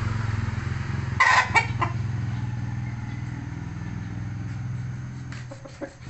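A rooster gives a short squawk, twice in quick succession about a second in, over a steady low hum that fades near the end. A few light clicks follow near the end.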